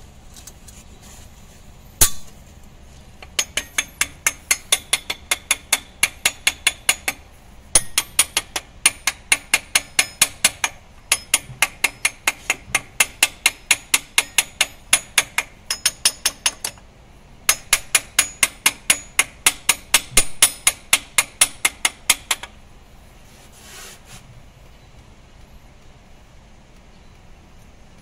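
Light hammer taps on metal at the timing gears of a Toyota Hilux engine, about four a second in three long runs, after one harder strike about two seconds in.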